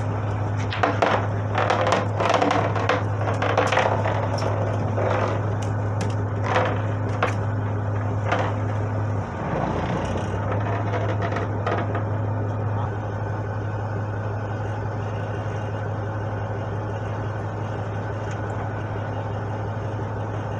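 Boat engine running with a steady low drone that shifts slightly about nine seconds in. Over the first dozen seconds it is overlaid by a string of sharp clicks and knocks, which then stop.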